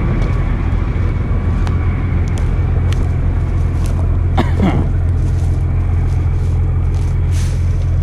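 Combine harvester running steadily, a constant low engine and machinery hum. About halfway through a brief sound sweeps downward in pitch.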